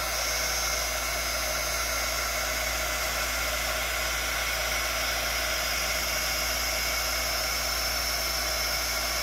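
Handheld heat gun running steadily, its fan blowing a constant hiss with a faint steady whine.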